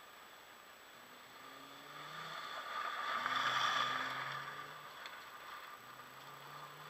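Rally car driving past on a loose dirt and gravel stage: engine and tyre noise swell to the loudest point about three and a half seconds in as it passes close, then fade as it drives away.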